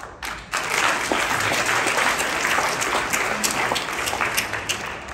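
Congregation applauding: many hands clapping together, starting about half a second in and beginning to fade near the end.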